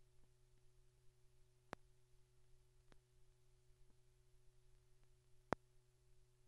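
Near silence: a faint steady hum with a few sharp clicks, the loudest about five and a half seconds in.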